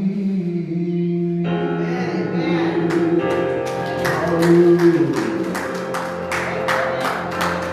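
Worship music: held sung notes at the start, then instrumental accompaniment with a steady beat of regular strikes from about three seconds in.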